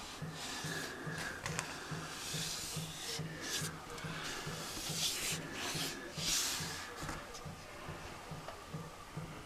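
Rubbing and handling noise from a handheld camera being moved, loudest in the middle, over a low pulsing hum at about two to three beats a second.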